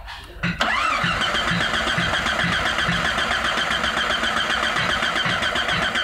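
The 1996 Jeep Grand Cherokee's 4.0-litre straight-six is cranked over by its starter for about five and a half seconds without catching, then the key is released and it stops abruptly. This is the crank-no-start fault being diagnosed.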